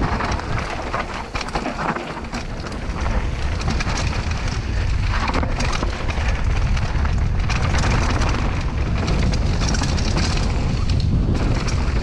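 Heavy wind buffeting on a camera microphone: a loud, continuous low rumble with rushing noise over it, as from a mountain bike ridden fast downhill.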